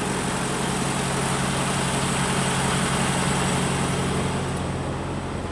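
Heavy diesel engine idling steadily with a low, even hum.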